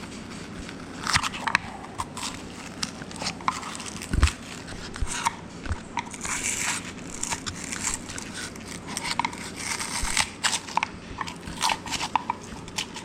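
Flat-blade screwdriver breaking and prying styrofoam out of a rifle buttstock's cavity: irregular crunching and squeaky scraping, with one louder knock about four seconds in.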